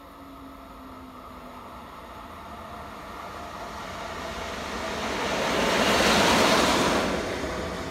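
Train passing the platform: a rushing noise that builds steadily, peaks about six seconds in and then begins to fade.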